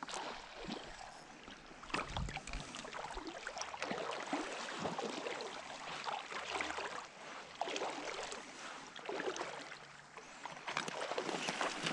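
Water sloshing and lapping, with many small, irregular splashes close by.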